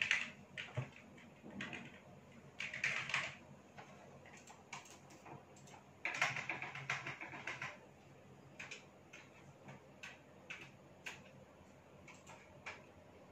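Computer keyboard typing: plastic key clatter in bursts, the longest about six seconds in, then thinning out to scattered single clicks.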